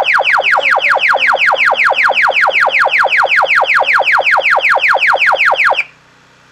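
Ultra-Hyperspike HS-24 acoustic hailing device sounding its animal-deterrent siren: a loud, high falling sweep repeated about five times a second, cutting off suddenly near the end.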